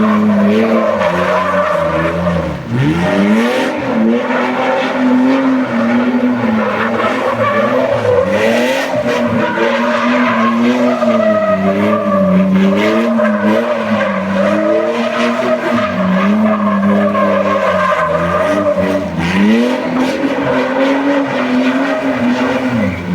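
A vehicle engine revving hard under driving, its pitch rising and falling continuously. Twice the revs drop sharply and climb again, once near the start and once near the end.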